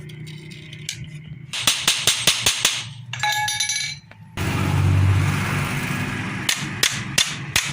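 Metal clinks and taps from hand work on a washing machine motor: a quick run of sharp clicks, a brief ringing clink, then more clicks over a low hum.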